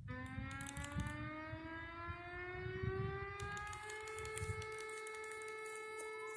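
Homemade outdoor warning siren starting up: its tone rises in pitch for about four seconds as the rotor spins up, then holds steady as the alert signal.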